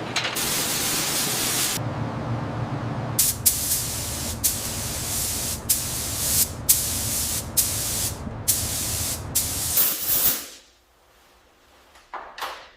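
Spray gun hissing, first in one long pass and then in a quick series of short bursts over a low steady hum. It all stops about ten seconds in, and two brief spurts follow near the end.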